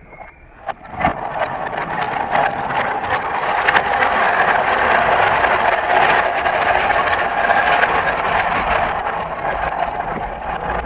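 Small electric motor of a Mega Bloks Thomas toy engine whirring steadily as it pulls a second engine and a loaded cargo car along plastic track, the wheels and plastic bodies rattling. It starts with a couple of clicks about a second in.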